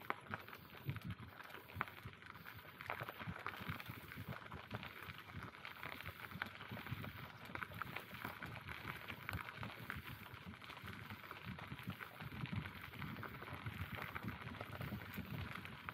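Bicycle riding along a forest path: tyre noise with a dense, irregular patter of small clicks and knocks from the rough surface and the bike.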